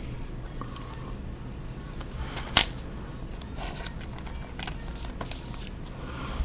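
Trading cards and a plastic card holder handled on a wooden table: scattered light clicks and taps over a steady low hum, with one sharp click about two and a half seconds in.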